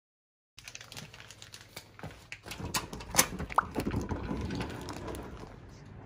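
Handling noise from a handheld phone carried through a doorway: irregular clicks, taps and footsteps, with one short squeak about three and a half seconds in.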